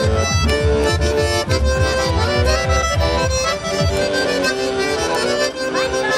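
Lively folk dance music led by accordion chords, with a thumping bass beat that drops out about four seconds in, leaving the accordion alone.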